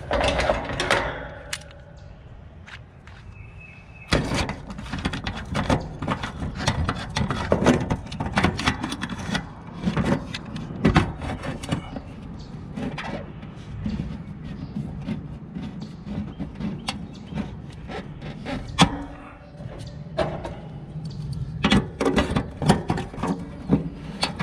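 Hand tools working at an air-conditioner condenser's electrical whip fitting: irregular metallic clicks, taps and scrapes of pliers on the conduit fitting. The clicks come thick and fast from about four seconds in.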